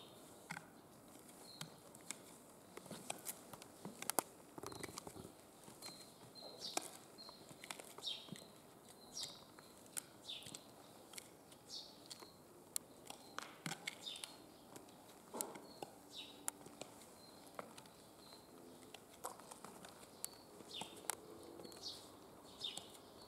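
Black platform stiletto heels clicking and scuffing on a dusty, gritty concrete floor, in irregular steps. A bird chirps over them with short falling calls about once a second.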